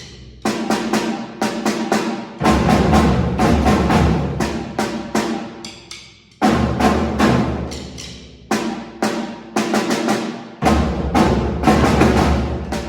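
Music played on struck, drum-like instruments: a run of hits that each ring and die away, with a deep low hit opening each phrase about every four seconds.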